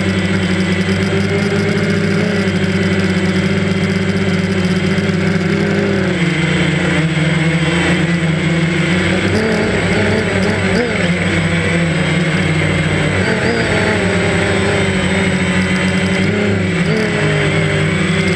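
DJI Phantom quadcopter's motors and propellers running steadily in flight, a buzzing drone whine heard close up from the aircraft itself. Its pitch shifts and wavers a few times, most clearly about six and ten seconds in, as the motors adjust.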